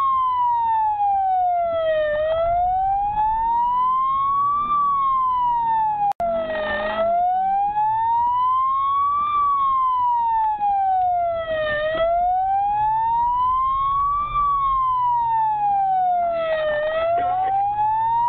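Police car siren on a slow wail, rising and falling about every four and a half seconds, heard from inside the pursuing car over its engine and road noise. The sound drops out for an instant about six seconds in.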